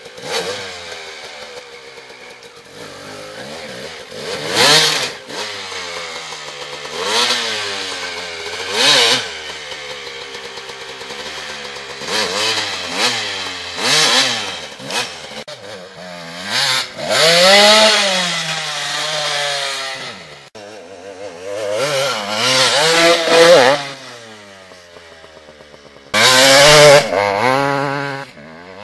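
Dirt bike engine revved in repeated bursts, its pitch climbing and dropping with each blip of the throttle, with a loud rev near the end.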